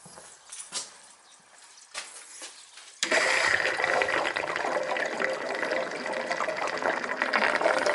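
Water gushing out of an old heating boiler being drained, starting suddenly about three seconds in and then running steadily. Before it, a few light clicks of hands on the brass drain fitting.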